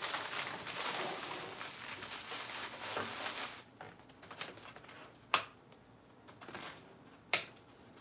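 Rustling and handling of food packaging for about three and a half seconds, then a few sharp taps or clicks, two of them standing out.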